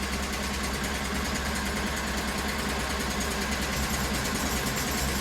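Red Roo SHP400 stump grinder's engine running steadily, with an even low hum and no change in pitch.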